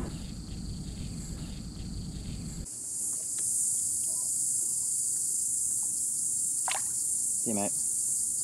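A steady, high-pitched insect chorus sets in suddenly about three seconds in, after low lapping water and hull noise. A couple of brief voice-like sounds come near the end.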